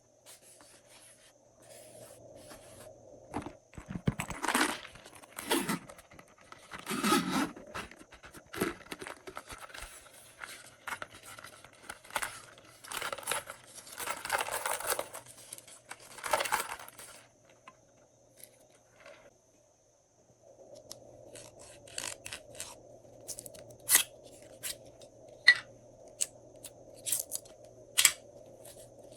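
Slime being worked by hand: a run of sticky tearing, crackling strokes as the slime is pulled and pressed, then a pause. After that come sharp clicks and taps over a faint steady hum.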